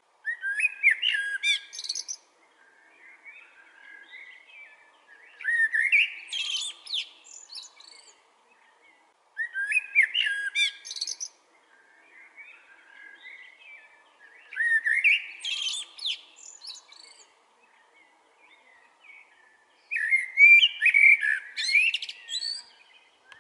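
Male common blackbird (Turdus merula) singing: five song phrases a few seconds apart, each a fluty warble about two seconds long that breaks into high, squeaky notes, with fainter chirps between phrases.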